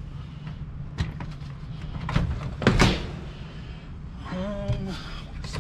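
Plastic storage tub's snap-on lid being unclipped and pulled open: a sharp click about a second in, then a louder thunk near the middle as the lid comes free.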